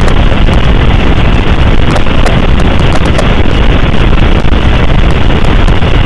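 Loud, steady static hiss with scattered crackling clicks: signal interference breaking up an Emergency Alert System broadcast.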